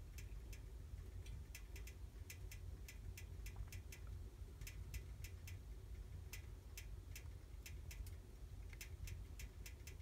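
Fire burning in a fireplace stove: irregular sharp crackles and pops, several a second at times, over a faint steady low rumble of the flames.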